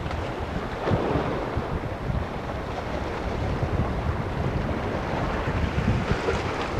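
Wind buffeting the microphone in uneven gusts, over a steady wash of sea water.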